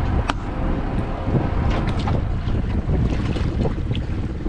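Small speedboat's engine running while it moves over choppy water, with wind buffeting the microphone and water rushing along the hull. There is one sharp knock about a third of a second in.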